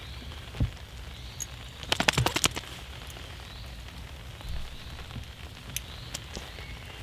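Steady rain pattering throughout. About two seconds in comes a quick burst of sharp crinkling and clicking as a nylon mini hammock is bundled up by hand, with a single knock just before it and a few light clicks later.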